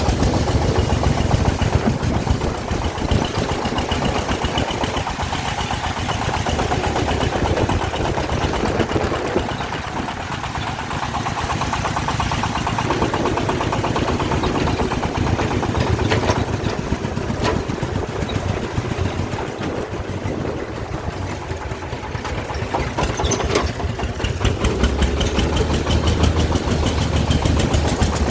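Diesel engine of a work vehicle running with a rapid, even knock, its level rising and falling. A couple of sharp clanks stand out past the middle, and a low steady hum grows stronger near the end.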